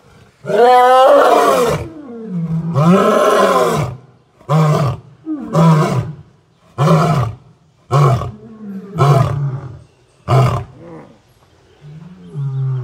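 Male lion roaring: two long full roars, then a run of shorter roars about one a second, the last one weaker.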